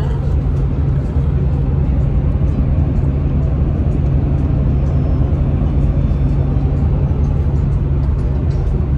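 Steady road and engine noise of a moving car, heard from inside the cabin: an even low rumble with no change.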